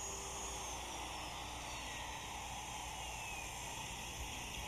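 An electric router winding down after being switched off: a faint falling whine that fades over about three seconds, over a steady hiss.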